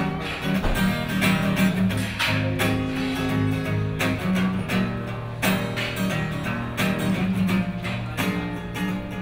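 Acoustic guitar played solo and unplugged: chords picked and strummed, with a quick run of string attacks and the notes ringing on between them.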